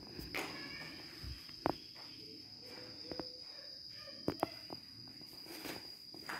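Mattress being handled on a wooden bunk bed: a few short knocks, a sharp one about two seconds in and two more close together past the middle. A steady high-pitched tone runs underneath throughout.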